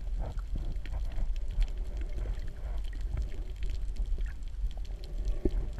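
Muffled underwater sloshing and gurgling picked up by a submerged camera, with scattered faint clicks and taps.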